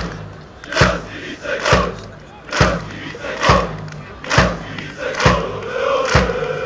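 Football supporters chanting in unison, with a big drum struck at an even pace of a little over one beat a second.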